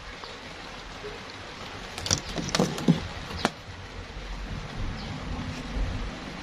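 A cluster of sharp clicks and knocks over about a second and a half as a small electronic circuit board is picked up and handled, over a steady background hiss.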